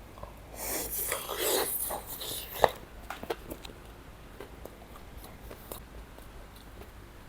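Crackling and rustling of crispy batter-fried chicken and lemongrass being handled, then a sharp click about two and a half seconds in and a few light ticks.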